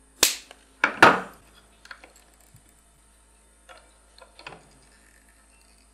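Side cutters snipping the thick legs of a battery connector on a small circuit board: three sharp snaps in the first second, then a few light clicks of parts and tools being handled.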